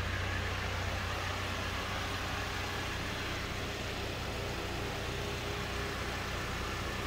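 Ford Explorer SUV engine idling: a steady low hum with an even hiss over it.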